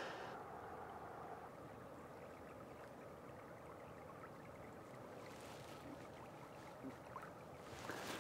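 Faint, steady rush of flowing river water, with a few soft ticks.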